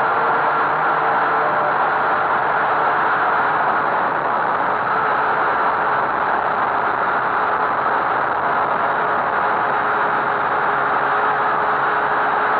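Syma X8C quadcopter's four motors and propellers whining steadily in flight, picked up close by the camera mounted on the drone.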